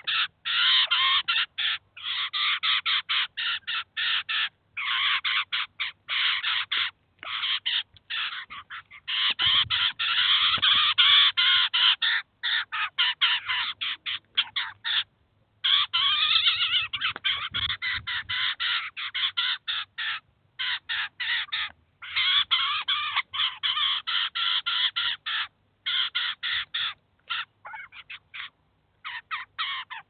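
Eurasian jay fledglings begging to be fed: harsh, rasping calls repeated almost without a break, with only brief pauses.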